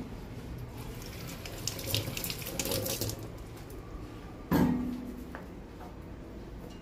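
Tap water running and splashing in a stainless-steel sink as green chillies are rinsed by hand. About four and a half seconds in there is a single loud knock with a short ring.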